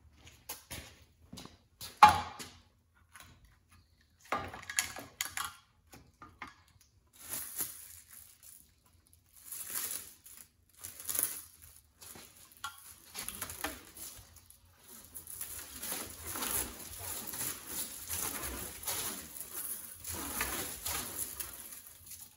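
John's Welding hand-crank firewood bundler in use: a few sharp knocks and clatters of the wood and steel frame, the loudest about two seconds in, then the plastic stretch wrap peeling off its roll with a steady crackling hiss as the crank turns the bundle, continuous through the last several seconds.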